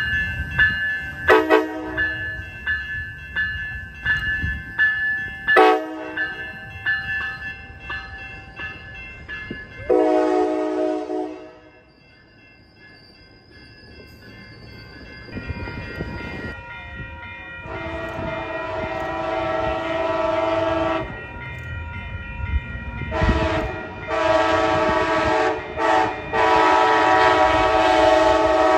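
Grade-crossing bell ringing steadily while a departing Coaster commuter train, cab car leading, sounds short horn blasts and then a longer one. Then a Coaster Siemens Charger locomotive approaches sounding its multi-note air horn in long blasts broken by short gaps, louder toward the end.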